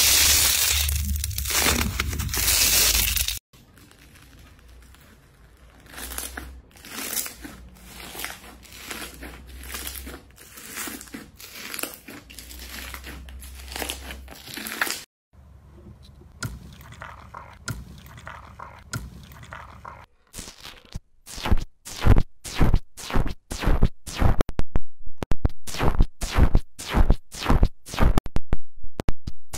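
Slime being squeezed and pressed by hands, crunching and crackling, in several short clips. From about two-thirds through comes a fast run of sharp pops, about two a second.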